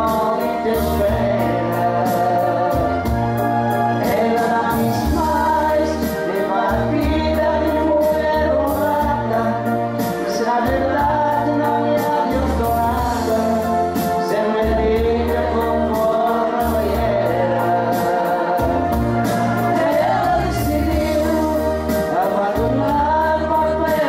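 Live karaoke singing into microphones, a man and a woman in duet, over a backing track with a steady beat and a bass line.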